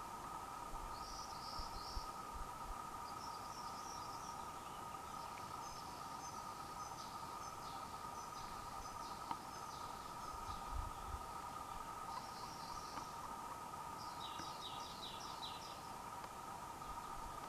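Quiet natural outdoor ambience: a steady high drone with groups of quick, high chirps repeating every few seconds, from insects or small birds.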